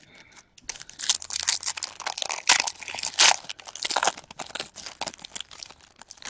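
Wrapper of a 2016 Diamond Kings baseball card pack being torn open and crinkled by hand: a dense, crackling run of crinkles and tears starting about a second in.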